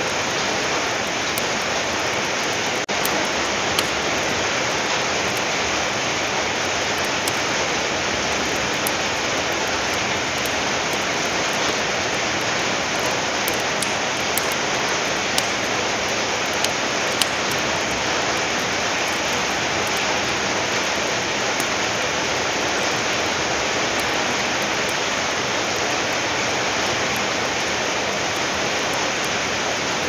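Steady rain, with scattered small crackles and pops of a wood fire burning in a fireplace.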